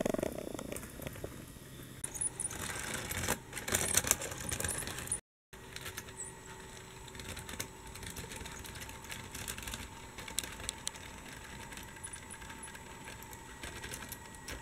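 Small die-cast toy train's wheels rattling and clicking along plastic model track and over a track crossing, busiest in the first few seconds, then fainter with only scattered light clicks after a brief cut-out.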